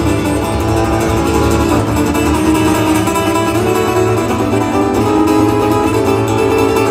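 Acoustic guitar playing a song's instrumental intro, steady and unbroken, with no voice over it.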